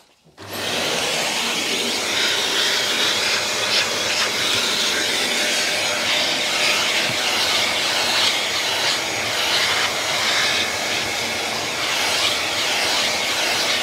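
Vacuum cleaner switched on about half a second in, then running steadily with its hose sucking at the carpet in the car's footwell.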